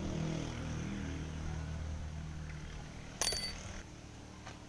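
A low droning hum that fades over about three seconds, then a single sharp clink with a short high ring about three seconds in.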